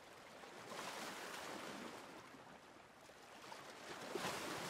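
Soft rushing noise with no pitch to it, swelling about a second in, easing off, then swelling again near the end, like a wind or surf sound effect.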